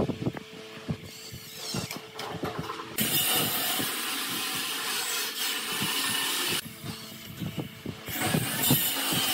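Light knocks and clatter of wooden slats and plastic crates being handled and fitted together. A steady hiss cuts in suddenly about a third of the way through, breaks off for over a second, and returns near the end.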